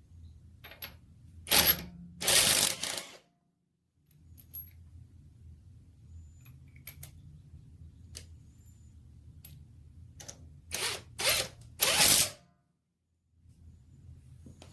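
Short bursts of mechanical rattling and clicking from a cordless impact wrench that has stopped working and come apart: two bursts near the start and three near the end, over a low steady hum.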